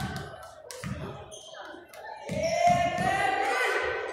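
A basketball bouncing on a hardwood gym floor, a few dull bounces about a second apart, as the shooter dribbles before a free throw. Just past the middle a voice calls out in a long, drawn-out shout that lasts over a second and is the loudest sound, ringing in the gym.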